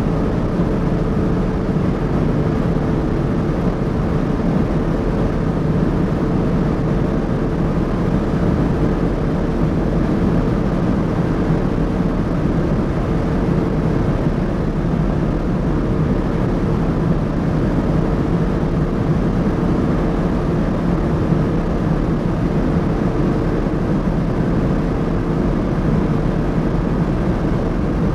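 Audi SQ5's 3.0 TFSI V6 engine cruising at a steady high speed, a constant drone with no change in pitch, over continuous tyre and wind noise.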